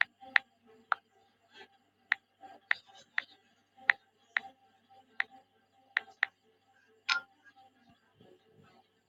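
A series of sharp clicks or taps at uneven intervals, about one or two a second, over a faint steady hum.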